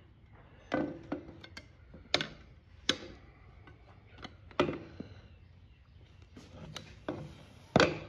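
Tire irons knocking and clicking against a small dirt bike wheel rim as a stiff tire bead is levered on: about eight sharp knocks at irregular intervals, the loudest near the end.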